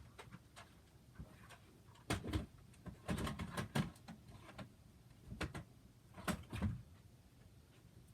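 Scattered soft knocks and bumps in a few short clusters, with quiet between them.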